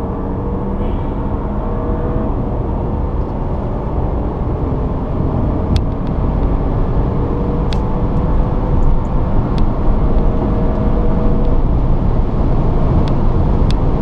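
Audi A7 accelerating hard, its engine tone climbing slowly in pitch over a heavy rumble of road and wind noise that grows louder, with a few sharp ticks.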